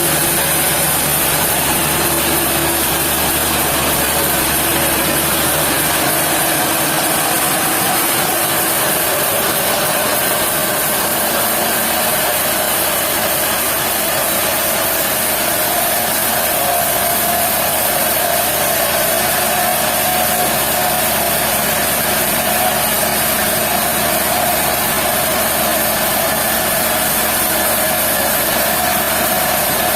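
Sawmill machinery running steadily, a continuous mechanical noise. A higher steady tone grows stronger about halfway through.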